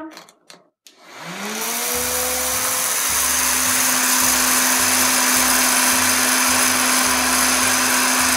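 Hot-air popcorn maker switched on: after a few light clicks, its fan motor spins up with a rising whine about a second in, then runs steadily with a loud rush of blown air through the open chamber.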